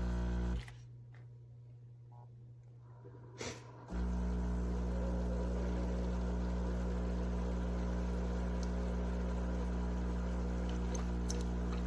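Cuisinart SS-10P1 single-serve coffee maker running a brew cycle, a steady low electric hum from its water pump. The hum stops for about three seconds early on, with a single click, then resumes and holds steady.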